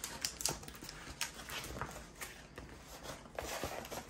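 Handling noise of a large rolled diamond-painting canvas: soft rustling with irregular light taps and clicks as it is rolled back and moved over a wooden table.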